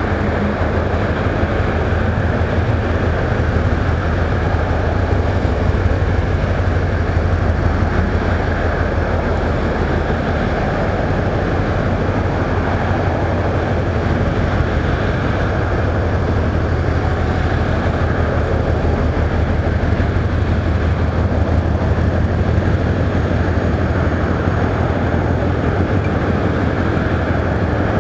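Steady low engine rumble with a hiss over it, unbroken and even throughout, with no single event standing out.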